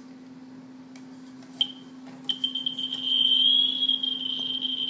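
Geiger counter sounding over radioactive samples: a short high chirp about a second and a half in, then a quick stutter of high beeps that merges into one continuous high-pitched tone, the sign of a very high count rate. A steady low hum runs underneath.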